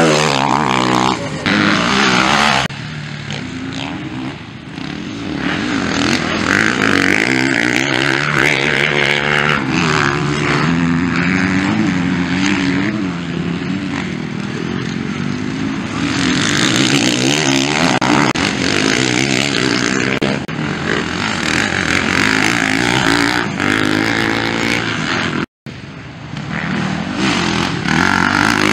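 Motocross bikes racing past on a dirt track, their engines revving up and down repeatedly as riders accelerate and back off. The sound cuts out for a moment near the end.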